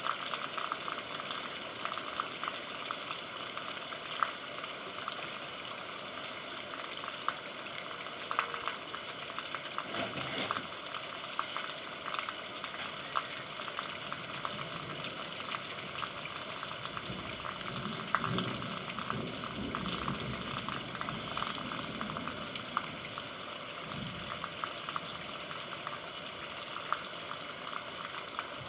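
Steady rain falling, a dense hiss of countless small drop impacts with a crackling patter. A few faint low rumbles come partway through.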